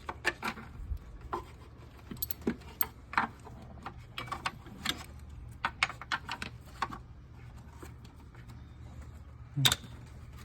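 Irregular metallic clicks and clinks of hand tools and small engine parts being handled, over a steady low hum.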